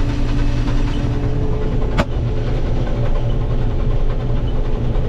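Heavy farm machinery engine running steadily with a loud low drone, heard from the operator's seat, with a brief sharp click about two seconds in.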